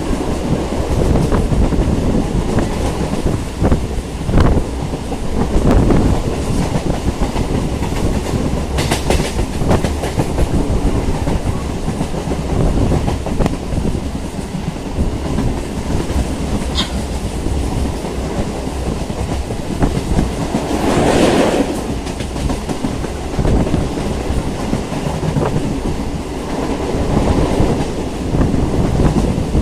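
Electric multiple unit (EMU) local train running along the track, a steady rumble with wheels clicking over rail joints now and then. It swells louder briefly a little after the middle.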